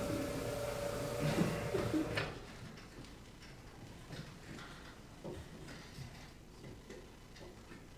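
The soundtrack of a projected video, carrying a steady tone, plays over the room speakers and cuts off abruptly about two seconds in. After that there is quiet room tone with faint scattered ticks and small clicks.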